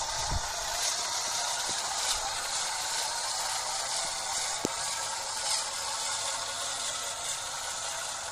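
Radio-controlled six-wheel flatbed truck driving, its electric motor and gearbox making a steady mechanical whirring with light, rapid gear clicking. One sharper tick about halfway through.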